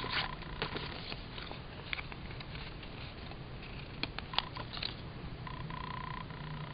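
Paper sticker sheet being handled close to the microphone: small clicks and light rustling as stickers are peeled off and pressed onto a planner page. A faint steady tone sounds briefly near the start and again near the end.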